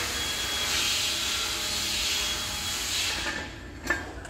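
Homemade radio-controlled lawn mower driving over low blocks, its drive giving a steady hiss that fades about three seconds in. A single sharp knock comes near the end as it crosses a block.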